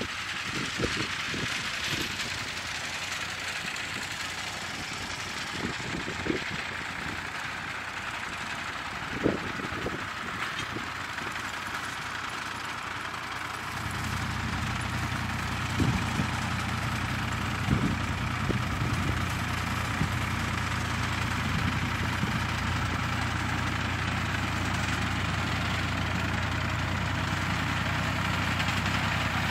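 Farm tractor engine running, coming in about halfway through as a steady low drone that grows louder as the tractor approaches, over a steady hiss.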